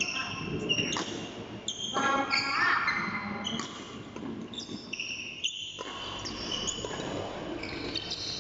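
Badminton doubles rally: rackets striking the shuttlecock every one to two seconds, with shoes squeaking on the court floor between the hits, in a large hall.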